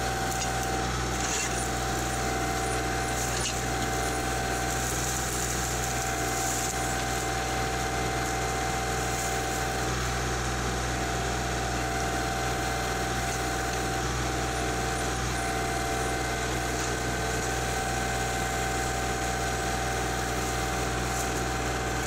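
Kubota L3901 tractor's three-cylinder diesel engine running steadily under load while its backhoe digs a trench.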